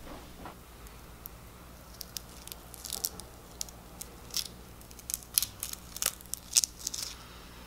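A black adhesive pore strip being slowly peeled off a nose, giving a series of small sharp crackles and ticks as it pulls away from the skin.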